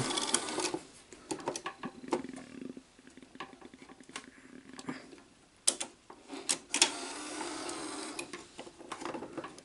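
NEC VC-N20EU Betamax VCR's cassette-loading mechanism working: a small motor whirring with scattered clicks and clunks, the sharpest a run of clicks about six seconds in. The drive belt is slipping.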